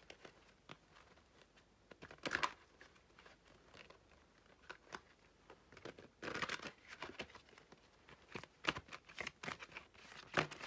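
Oracle cards being handled: irregular soft rustles and taps of card stock, once about two seconds in and in a run from about six seconds on.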